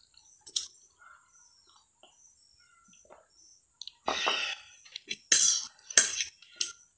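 A few short, breathy mouth noises about four, five and a half and six seconds in, with faint clicks of a steel fork against a ceramic plate of instant noodles as they are eaten.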